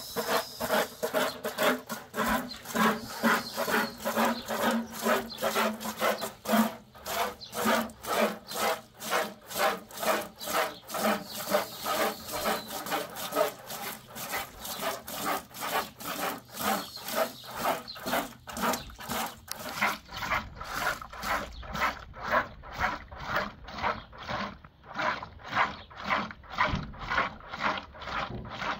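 Milk squirting in streams into a red plastic bucket as a cow is milked by hand, in a quick, steady rhythm of hissing squirts.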